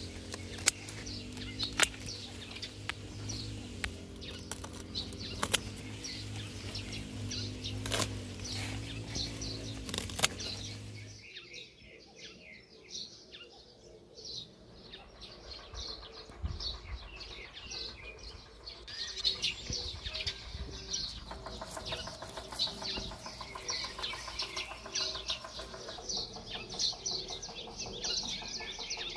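Pruning shears snipping butterbur stalks, a sharp click with each cut, over a steady low hum. About eleven seconds in the sound changes to quieter outdoor ambience with birds chirping.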